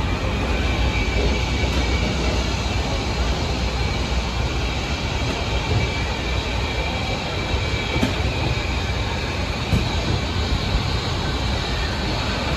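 Arrow mine train roller coaster running on its track: a steady rumble with a faint high squeal held throughout, and a couple of light knocks later on.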